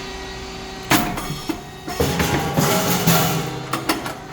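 SYP9002 CE rice cake popping machine running: a steady machine hum with sharp bangs as the cakes pop. The loudest bang comes about a second in, and a noisy burst with more knocks follows from about two seconds on.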